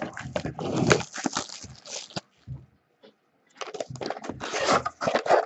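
A sealed box of trading cards being torn open: crackly ripping of its wrapping and cardboard in two spells, with a pause of about a second and a half between them.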